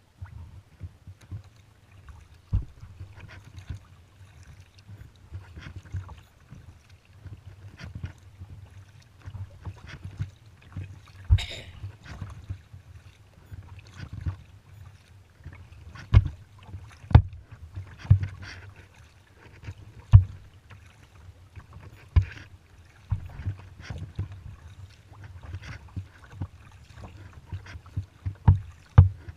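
Kayak being paddled: paddle strokes in the water with irregular knocks and taps, the loudest in a cluster past the middle and again near the end, over a steady low rumble.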